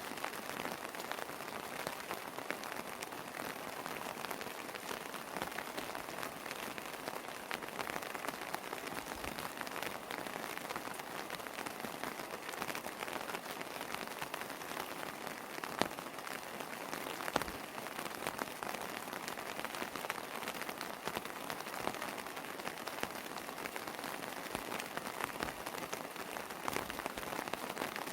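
Steady rain falling, with many individual drops pattering on hard surfaces and a few louder drips now and then.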